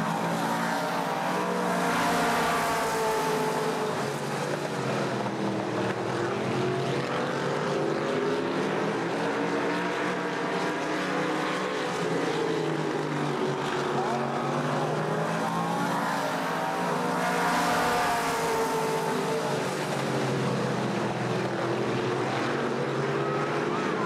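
A pack of late model stock cars racing, their V8 engines running hard. The pitch rises and falls as the cars come by, and the sound is loudest about two seconds in and again around seventeen seconds in.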